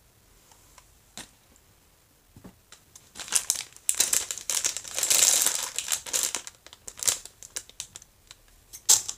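Thin plastic packaging crinkling loudly as it is handled and unwrapped by hand, starting about three seconds in after a few light clicks, with dense crackles throughout.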